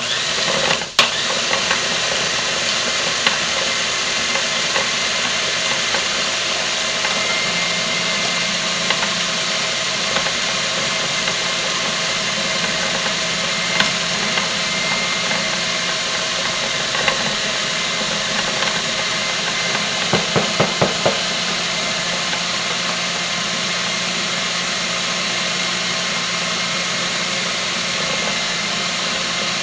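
Food processor motor running steadily, its blade grinding bar-soap noodles together with borax and washing soda into powder. It starts abruptly at the beginning, and a short run of knocks comes about twenty seconds in.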